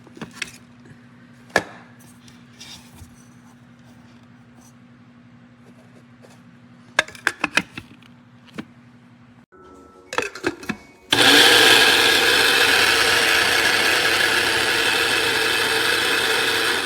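Clicks and knocks as the grinder is handled over a low steady hum, then about eleven seconds in the SHARDOR electric blade grinder's motor starts and runs loud and steady, its blade grinding vanilla beans.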